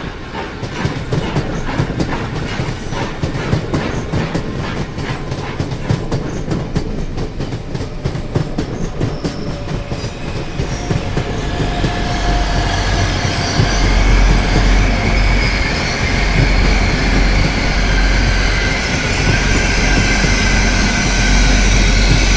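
Train of passenger coaches rolling along the track with a fast, even clickety-clack of wheels over rail joints. About halfway through the clatter gives way to a louder, steady rumble with a high wheel squeal.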